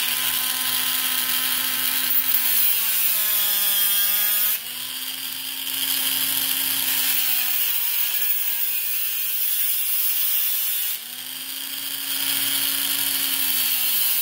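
Dremel rotary tool running at high speed, its thin abrasive cutoff wheel grinding angled notches into a stainless steel screw. The motor whine sags in pitch while the wheel bites, then rises again. The grinding hiss breaks off briefly about four and a half seconds in and again about eleven seconds in, while the motor keeps spinning.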